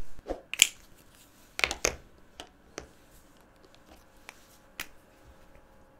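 A few scattered clicks and taps of felt-tip markers being handled: one marker set down and the next taken from its plastic case, with small knocks against the paper and case.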